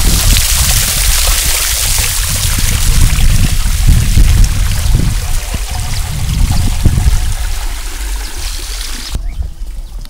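Water pouring and splashing steadily, cutting off suddenly about nine seconds in.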